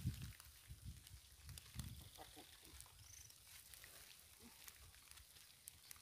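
Near silence, with faint low thuds and rustling in the first two seconds as a heavy sack of corn is shifted onto a motorcycle, and a faint high chirp about three seconds in.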